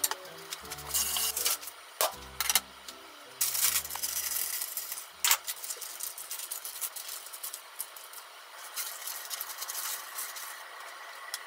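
Wax paper rustling and crinkling as it is pressed into lunch boxes, then aluminium foil crinkling as it is opened, with a few sharp clicks. Light background music plays and stops about five seconds in.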